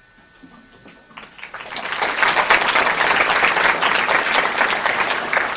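Audience applauding: after about a second of quiet, clapping starts, builds quickly, and holds steady and loud.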